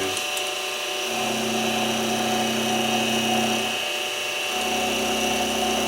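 Mini milling machine running, its end mill taking a pass to clean a rounded edge off a small block. There is a steady motor whine, and a lower hum comes in about a second in, drops out briefly around four seconds, and returns.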